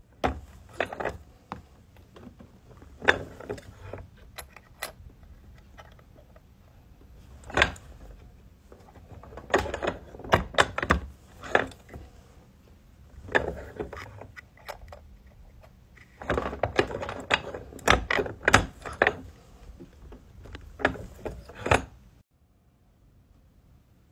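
Steel punch, die and silver coin ring clinking and knocking together as the ring is set in the die and pressed, in bursts of sharp metallic clicks that stop suddenly near the end.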